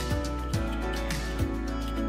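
Background music with a steady beat: a low drum thud about every half second under held tones.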